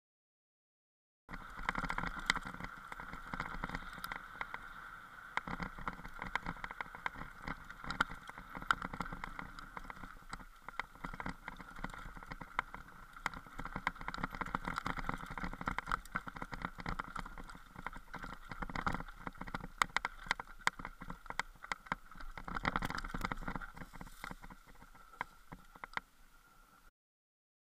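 Mountain bike riding down a rocky trail, heard from a camera on the rider or bike: a continuous rattle with many sharp clicks and knocks as the wheels run over stones, over a steady buzz and low wind rumble. It starts about a second in and cuts off shortly before the end.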